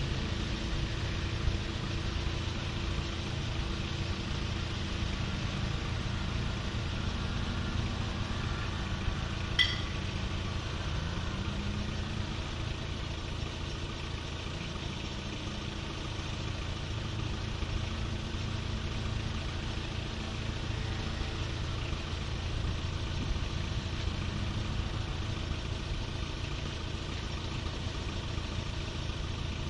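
A vehicle engine running steadily near idle, its pitch rising slightly a couple of times, with a sharp click about ten seconds in.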